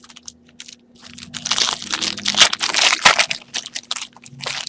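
Trading-card pack wrapper being torn open and crinkled: a dense crackle lasting about two seconds, starting about a second in, then a shorter crinkle near the end.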